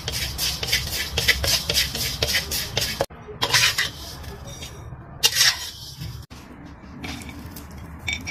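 Metal spatula scraping and stirring around a wok in quick strokes, black sesame seeds being dry-toasted. About six seconds in it gives way to fainter crackling of cooked peanut skins being rubbed off by hand, over a steady low hum.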